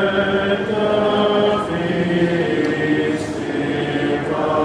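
Congregation singing a hymn a cappella, several voices together on long held notes.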